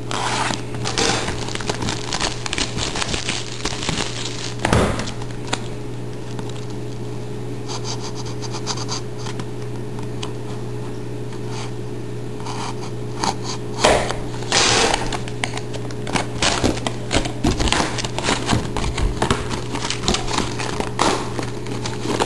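Scissors scraping and snipping at the plastic shrink wrap on a cardboard trading-card box, with the loose plastic crinkling. The crinkling and handling grow busier in the last several seconds, over a steady low hum.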